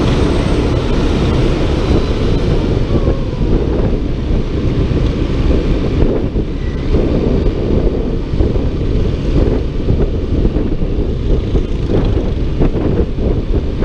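Wind buffeting the microphone of a moving motor scooter: a steady, loud, low rumble of rushing air.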